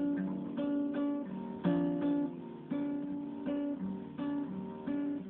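Acoustic guitar strumming and plucking chords in an instrumental passage of a song, each chord struck sharply and left to ring.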